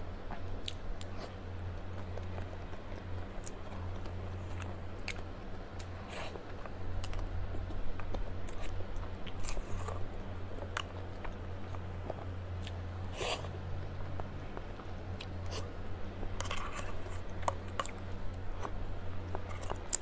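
Close-up eating sounds: a metal spoon clicking and scraping against a metal tin, with soft chewing of a creamy dessert. The clicks come irregularly, over a steady low hum.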